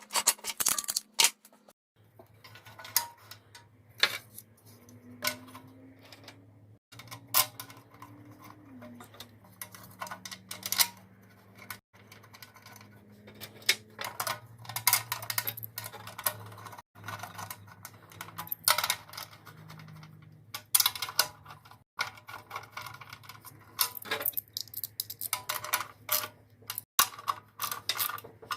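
Irregular metallic clicks, clinks and knocks of hand tools and small metal parts as a generator's recoil starter is put back on, over a faint steady low hum.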